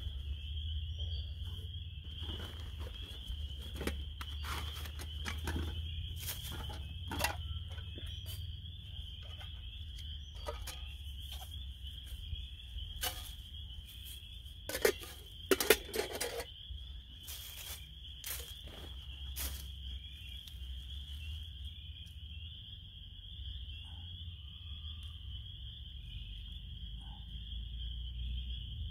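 Rustling, crinkling and light clattering of a backpacking food pouch and cooking gear being unpacked and handled, in irregular bursts with the loudest handling about halfway through, then settling down. Behind it a steady, high-pitched chorus of small calling animals runs throughout.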